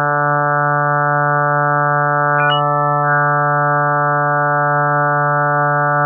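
A steady, unchanging low electronic drone on one pitch, with a brief higher blip about two and a half seconds in, played as the 'sound' of Jupiter's moon Carme.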